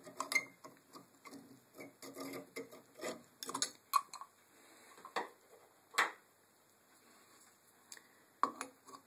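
Handling noise of downlight bulbs: scattered small clicks and light knocks of the metal bulb casings against each other and the ceiling light fitting, with a quieter stretch of a couple of seconds after about six seconds in.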